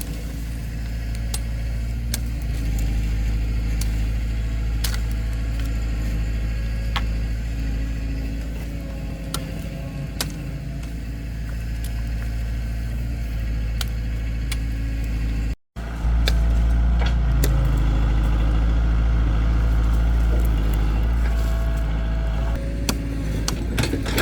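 Heavy diesel engine running steadily with a deep rumble, with scattered light clicks and knocks over it; the sound cuts out for an instant partway through and comes back louder.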